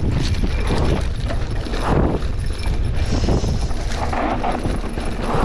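Mountain bike descending a dry dirt trail: rumble of the tyres and a steady clatter of knocks and rattles from the bike over the bumps, with wind buffeting the microphone.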